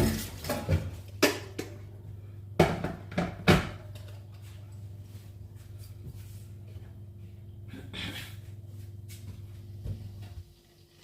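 Kitchen clatter: several sharp knocks and clanks of kitchenware being handled in the first few seconds, then a softer rustle, over a steady low hum that cuts out near the end.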